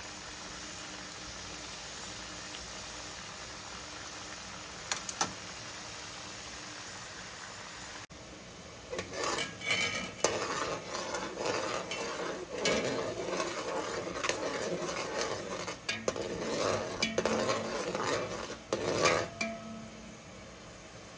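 Pieces of dough deep-frying in oil with a steady sizzle. After a cut about eight seconds in, a metal spoon stirs sugar and water in a metal pot, with irregular scraping and clinking against the pot, stopping shortly before the end.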